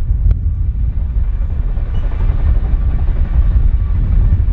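Low, steady rumble of a Chinook tandem-rotor helicopter heavily mixed with wind buffeting the microphone.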